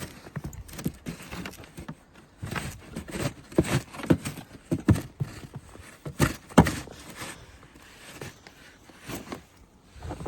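Footsteps crunching through deep snow in an irregular rhythm, the heaviest steps a little past the middle, thinning out near the end.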